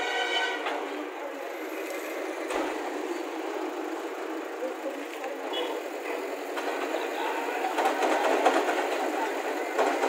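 JCB backhoe loader's diesel engine running under load as it works, mixed with passing motorbike and scooter traffic. The noise grows louder in the second half.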